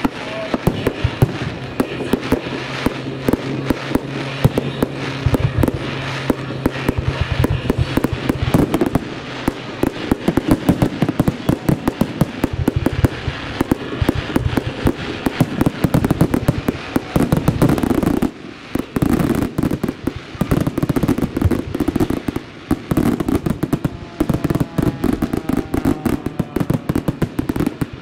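Aerial fireworks going off in a rapid, unbroken string of bangs and crackles. The barrage dips briefly about two-thirds of the way through, then starts again.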